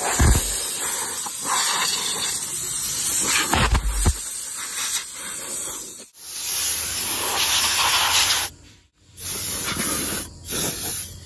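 Compressed-air blow gun on a coiled air hose blasting air to clean a truck, a loud steady hiss that cuts out briefly about six seconds in and again near nine seconds. Two low thuds come in the first four seconds.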